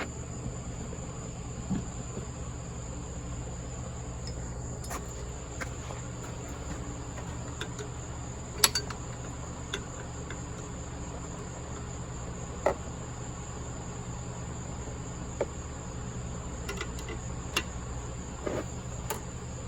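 Scattered sharp metallic clicks and taps of a wrench working on a tight brass sensor threaded into a small engine block, over a steady high-pitched chirring and a low hum.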